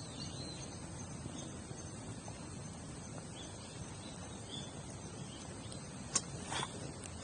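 Campfire burning with a low, steady crackle, insects chirping faintly above it, and two sharp snaps close together near the end.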